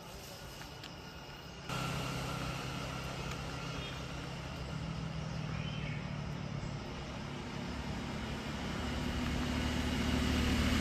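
A motor engine running with a steady low hum that starts abruptly about two seconds in and grows gradually louder toward the end.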